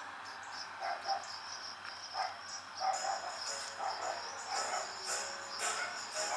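Crickets chirping in a steady high pulsing trill, with faint irregular short sounds over it that grow more frequent from about halfway through.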